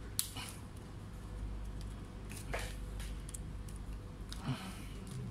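Hands handling a small internal cable and plastic parts inside an open laptop: a sharp click just after the start and softer clicks and rubbing about halfway and near the end, over a steady low hum.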